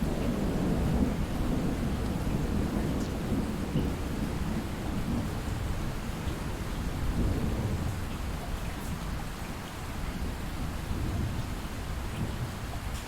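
Light, steady rain with distant thunder rumbling low, swelling in the first few seconds and again about seven seconds in, then easing off.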